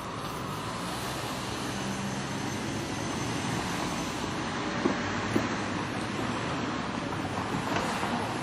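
Electric train running past a level crossing: a steady rumble with two sharp knocks about halfway through.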